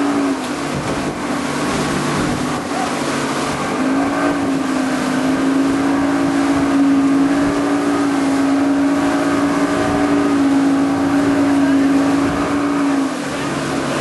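Motorboat engine running steadily with water and wind noise; the engine note drops just after the start, rises again about four seconds in and drops once more near the end.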